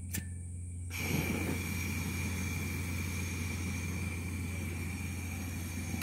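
A lighter clicks, and about a second in the portable butane camping stove's burner catches suddenly, then burns with a steady gas hiss and a thin high whistle.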